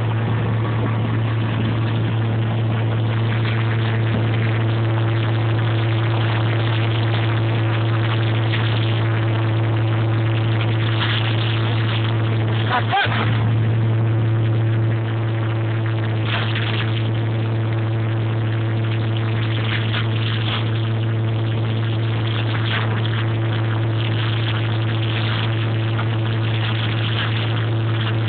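Engine-driven field implement running along the crop rows as a steady mechanical drone, with a constant low hum and a few steady overtones. There is a brief knock about 13 seconds in, and the sound drops slightly in level soon after.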